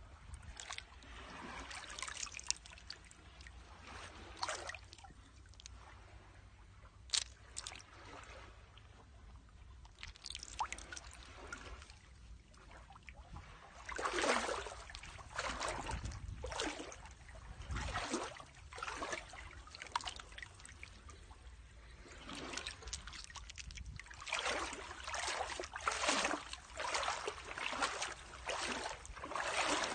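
Small waves washing and lapping against shore rocks in irregular splashing surges, busier about halfway through and again in the last few seconds.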